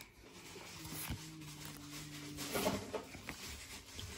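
Pokémon trading cards being flipped through by hand: faint, soft sliding and light taps of card against card.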